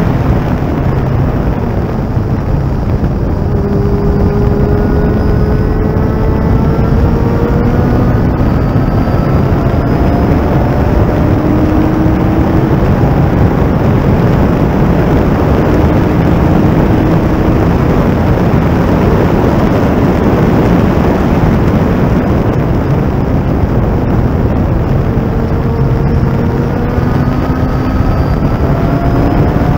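Thunder Roadster race car at speed, heard onboard: heavy wind rush over the open cockpit and microphone, with the engine note climbing in pitch several times as it accelerates.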